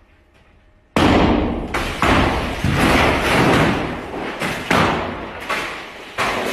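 Glass office partition panels being struck and shattering, with broken glass crashing onto the floor: a run of loud crashes beginning about a second in, roughly one every half-second to a second.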